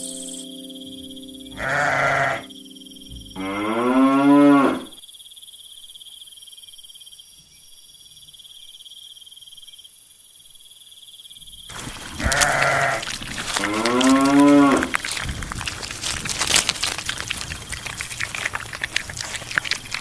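Farm animal bleats: a short rough call followed by a longer pitched bleat, the same pair coming twice about ten seconds apart. After the second pair comes a few seconds of dense crackling clicks.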